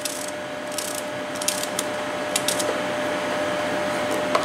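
Steady background hum with a faint steady tone, under light scattered clicks and rustles of hands arranging raw trout slices and shallot in a plastic tub.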